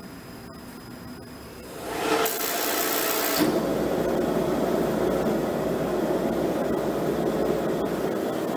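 Carlin oil burner of an FAA fire-test rig starting up. About two seconds in, a high hiss lasts a little over a second; the burner then lights and burns with a steady, even rush of flame.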